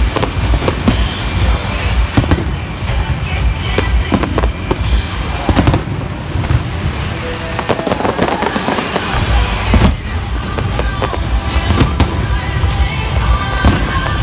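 Aerial firework shells bursting overhead: repeated sharp bangs every second or so over continuous crackling and a deep rumble.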